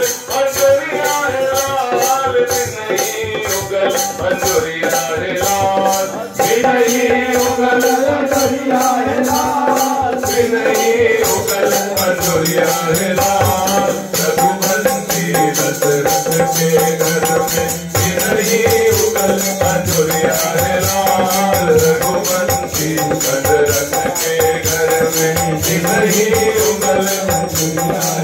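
Hindu devotional bhajan music: a sustained melody over a steady, fast beat of shaken or jingling hand percussion, with hand-clapping along.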